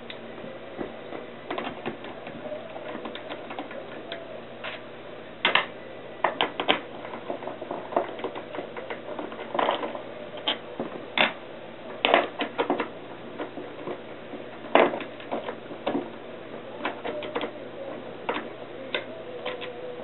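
Irregular light metal clicks and taps as bolts are loosened and taken out of a small engine's aluminium crankcase cover, some coming in short quick runs.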